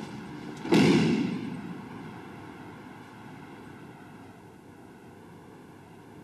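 A judoka's body landing on the tatami in a breakfall after a throw: one heavy thud about three-quarters of a second in, dying away over about a second.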